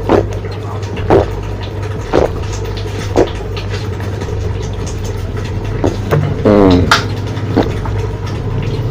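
A person gulping fizzy soda from a big plastic bottle, loud swallows coming about once a second. After a few more gulps, a short vocal sound falling in pitch follows as the bottle comes down. A steady low hum runs underneath.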